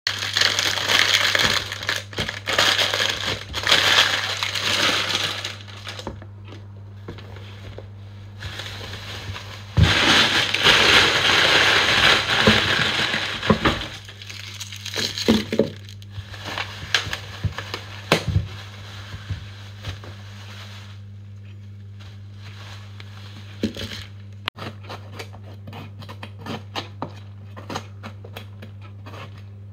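Thin plastic produce bags crinkling and rustling in two loud stretches as vegetables are pulled out of them. Scattered light knocks follow as the vegetables are set down on a wooden worktop, and small clicks come near the end as a knife cuts into a bell pepper. A steady low hum runs underneath.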